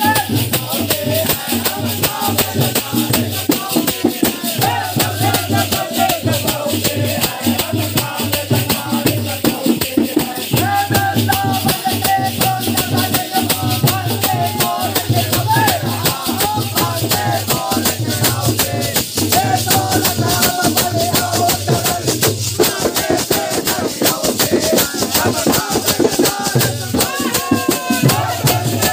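Holi faag folk song: a group of men singing over a rope-tensioned dholak beating a steady rhythm and a stick of small metal cymbals shaken in a constant jingle.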